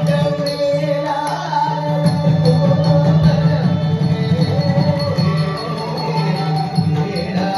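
Carnatic devotional song accompanying a Bharatanatyam dance: a singer's melody over a steady drone, with rhythmic jingling from the dancer's ankle bells.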